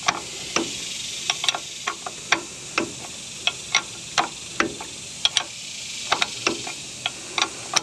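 Hand ratchet wrench clicking in short, uneven strokes, about two to three clicks a second, as a brake caliper bolt is backed out slowly by hand. A steady hiss runs underneath.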